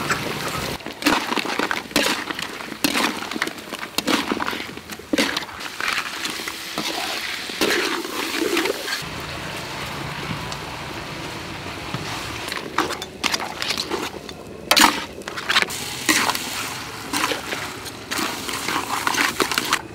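Stir-frying in a wok over a fire: food sizzling while a metal spatula scrapes and knocks repeatedly against the wok, with liquid poured in from a bowl about halfway through.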